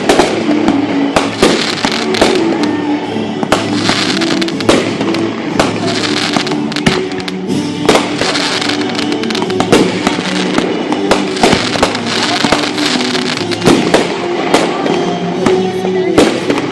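Fireworks display: many shells bursting in quick irregular succession, with crackling between the bangs, over music with held notes playing underneath.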